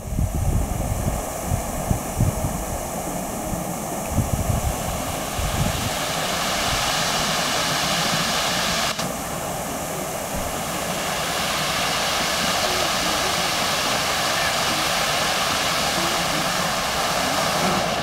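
Fountain jets splashing down into a pond: a steady rushing hiss of falling water, with low buffeting in the first few seconds.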